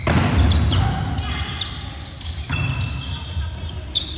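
Volleyball rally in a sports hall: the ball is struck sharply at the start, again about two and a half seconds in and once more near the end, each hit echoing in the hall.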